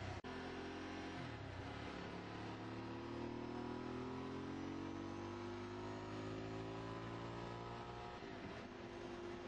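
Motorcycle engine under way, heard from on the bike: after a gear change about a second in, the revs climb slowly and steadily, then drop again with another shift near the end. A steady rush of wind runs underneath.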